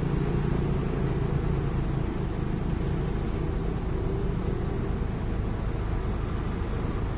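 A truck's diesel engine running at low speed, a steady low rumble heard from inside the cab.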